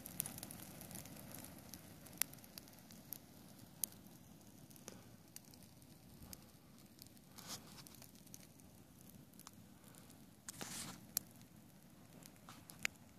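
Small pile of dry weeds burning, giving off scattered sharp crackles and pops over a steady low rush.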